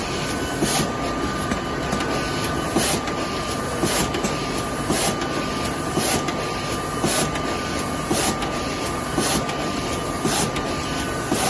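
Smyth F180 automatic book sewing machine running: a dense, steady mechanical clatter with a sharp clack about once a second over a thin, constant hum.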